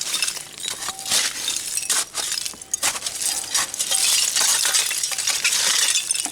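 Broken glass and bottles in a dump clinking and crunching as they are dug through, first as separate clinks and then, from about three seconds in, as a dense, continuous crackle of shards.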